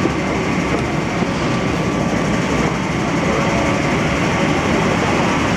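Steady hum and rush of a metro train car standing at a platform with its doors open, with the station's noise coming in through the doorway.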